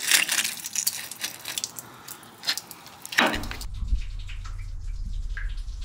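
Water dripping and trickling inside a steam boiler being washed out, first as a dense run of small splashes and clicks. About three seconds in, a low steady hum sets in suddenly, with a few single drips plinking over it.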